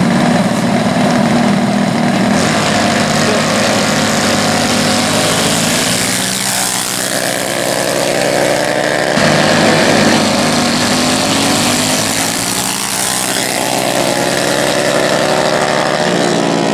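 Two minibikes' small single-cylinder engines running hard in a drag race, their pitch rising and falling as they rev and pull away. The sound breaks off suddenly about nine seconds in and picks straight up again.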